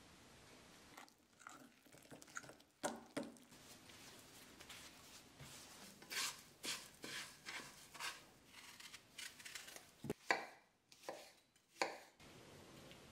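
Food-preparation sounds: a couple of knocks, then a spatula scraping breadcrumbs around a frying pan in a run of short strokes. A few sharp knife chops on a wooden cutting board follow near the end and are the loudest sounds.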